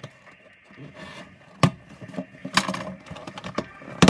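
Cardboard shipping box being handled and its flaps pulled open on a wooden table: cardboard rubbing and scraping, with a few sharp knocks, the loudest near the end.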